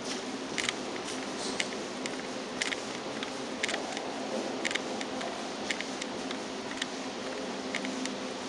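Footsteps walking along the concrete floor of a sewer tunnel: short, sharp clicks about once or twice a second, at an uneven pace, over a steady rushing hiss.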